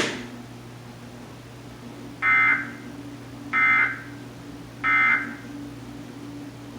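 Emergency Alert System end-of-message data tones: three short bursts of two-tone digital screech, about a second apart, marking the end of the test alert. A sharp click at the very start and a steady low hum underneath.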